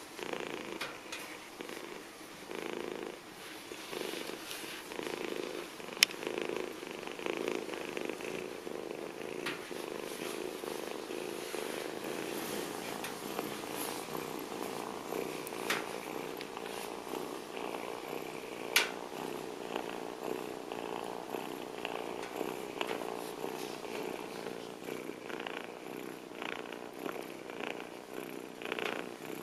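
Young ginger kitten purring steadily, with two sharp clicks, one about six seconds in and one past the middle.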